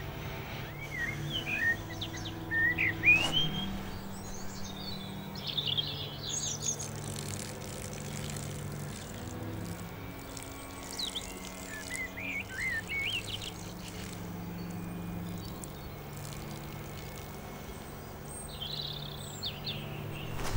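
Woodland birds chirping and singing in scattered phrases of short rising and falling calls. Underneath is a low steady drone of held string notes that shifts pitch every few seconds.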